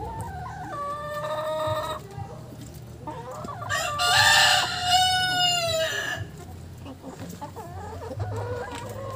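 Heritage chicken roosters crowing: a shorter crow in the first two seconds, then a louder, longer crow from about four to six seconds in, with hens clucking.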